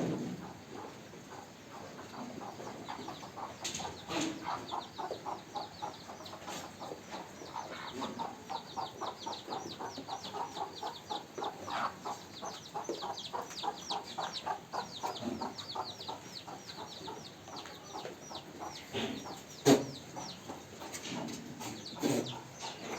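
Chickens clucking in a long, quick run of short calls, with high falling peeps over them. A few sharp knocks, the loudest near the end.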